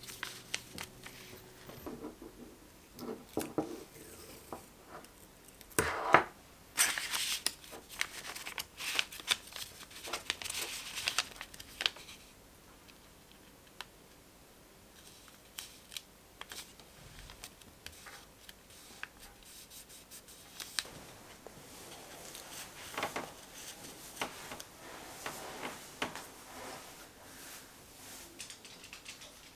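Kraft paper envelope being folded and sealed by hand: paper rustling and crinkling with sharp clicks, in bursts, loudest from about six to twelve seconds in, then lighter handling.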